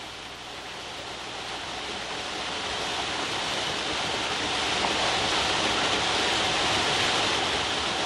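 Waterfall rushing down a cliff of some twenty metres: a steady, intense hiss of falling water that swells gradually louder.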